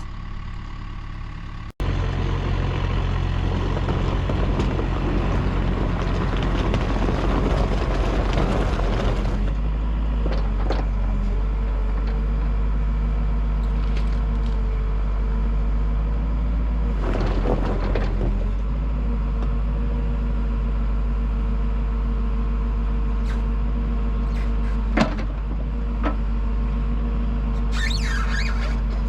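Diesel engine of heavy equipment running steadily, louder and rougher for the first several seconds and then settling with a faint steady whine. A short rush of noise comes in the middle and a single sharp metal knock comes near the end.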